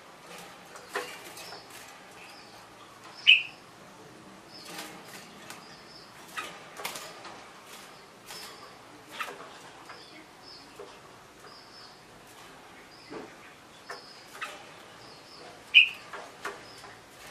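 A young red-whiskered bulbul moving about its wire cage: scattered wing flutters and light knocks of its feet on the perch and bars. It gives two short, sharp chirps, about three seconds in and near the end, along with faint soft high notes.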